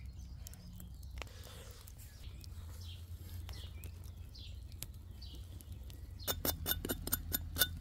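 Wood fire crackling under a spit-roasting pig, with scattered sharp pops. Near the end a quick run of louder clicks comes in, about eight a second.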